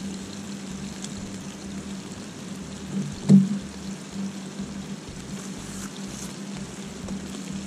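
Food sizzling in a frying pan on a portable gas stove burner, a steady hiss, with a brief knock a little over three seconds in.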